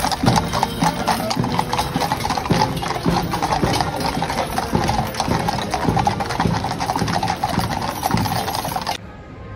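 Hooves of several Household Cavalry horses clip-clopping on the road as the mounted column rides past, many overlapping hoofbeats. The hoofbeats cut off near the end.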